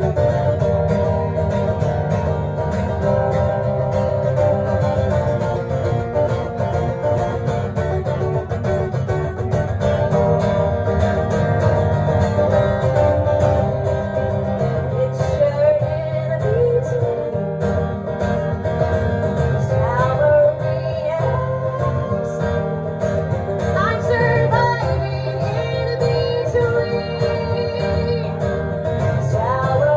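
A live solo song: an acoustic guitar strummed steadily, with a singing voice over it, most plainly in the second half.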